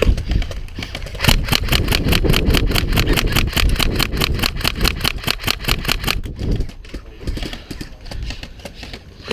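Airsoft electric rifle firing long full-auto bursts: a rapid, evenly spaced rattle of shots that thins out after about six seconds, with wind rumble on the microphone.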